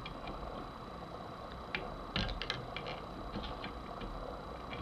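A dozen or so light, irregular metallic clicks and taps over a couple of seconds, starting about two seconds in: a screwdriver blade working against the steel vent rib of a 12-gauge shotgun barrel to knock the rib down.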